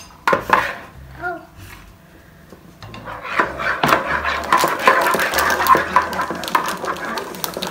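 A spatula scraping puree out of a glass bowl, then from about three seconds in a spoon stirring and scraping in a plastic mixing bowl, mixed with the crinkle of a cookie-mix pouch being handled.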